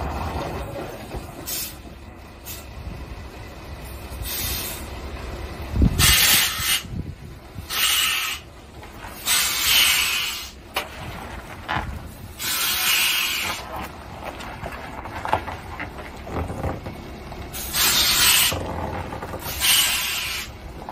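Heavy cement tanker semi-truck creeping over a rough gravel road, with a low rumble under it and repeated short bursts of loud hissing, about seven in all and unevenly spaced.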